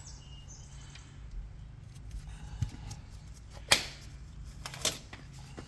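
A few sharp clicks and knocks of hand work on an engine, four in all, the loudest a little past the middle, over a steady low hum.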